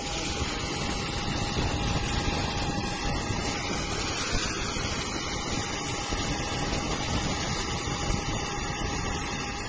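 Heavy downpour on a flooded airport apron: a steady, even rushing noise of rain and wind, with a faint steady high whine underneath that stops near the end.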